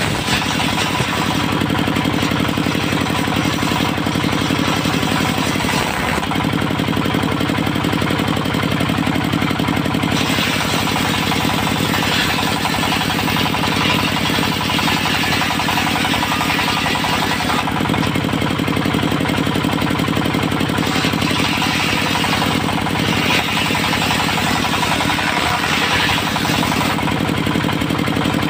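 Diesel engine of a mobile circular sawmill running steadily, with long stretches of harsher, louder noise from the saw blade cutting teak, starting about ten seconds in and again in the second half.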